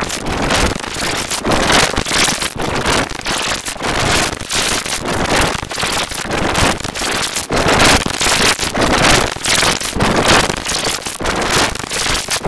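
A logo jingle's audio so heavily distorted by editing effects that it becomes a harsh, dense crackling noise with no clear tune, surging louder and softer several times a second.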